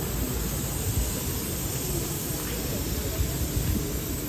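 Steady hiss of steam escaping from a standing 1942 W.G. Bagnall steam locomotive, over a low rumble.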